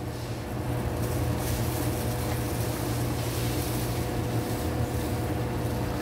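Electric spiral dough mixer running steadily, a constant low motor hum, as its spiral hook turns through dry flour in the stainless steel bowl at the start of mixing.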